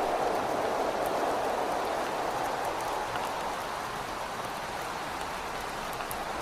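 Steady rain and wind: a dense hiss of rain with scattered faint drop ticks, and a rushing that eases off through the middle and begins to swell again near the end.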